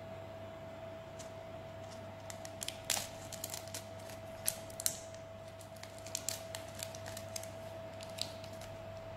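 Foil-and-plastic bait packet crinkling and clicking as it is handled and opened over a cardboard cockroach trap: a scatter of sharp little crackles a few seconds in and again towards the end, over a steady faint hum.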